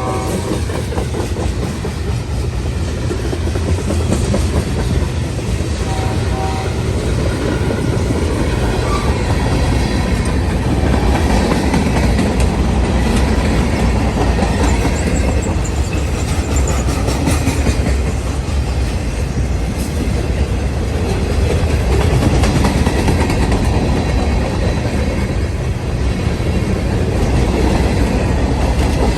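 Freight train rolling past with a steady rumble and a clickety-clack of wheels over the rail joints. A short horn note sounds about six seconds in.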